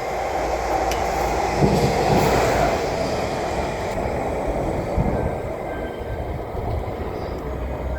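JNR Class DE10 diesel-hydraulic locomotive running light through a station at speed, a steady rumble of engine and wheels with heavy knocks about two and five seconds in, then easing off as it goes by.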